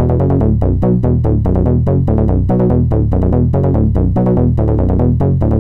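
Synthesizers.com modular synthesizer playing a sequencer pattern: a fast, steady stream of short bass-heavy notes, with a random-gate patch adding random ratchets (quick extra retriggers of the note).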